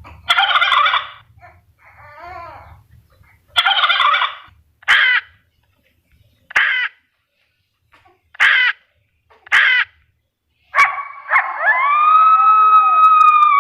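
Turkey gobbling twice, followed by four short bird calls and a long drawn-out call near the end.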